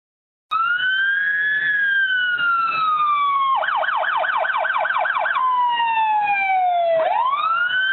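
Emergency vehicle siren sounding: a slow rising and falling wail, switching for about two seconds to a fast yelp, then back to the wail.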